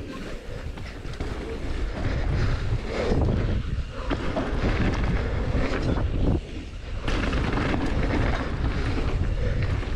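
Wind buffeting a helmet or bike camera's microphone as a mountain bike rolls fast over a dirt trail, with the rumble of tyres on dirt and the rattle of the bike. The noise drops away briefly twice in the middle.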